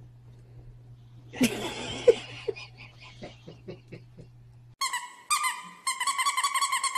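A burst of rustling and a couple of sharp sounds, then some short faint sounds, over a low hum. About five seconds in, a small white long-haired dog howls in a high, wavering note: two short stretches, then one held note.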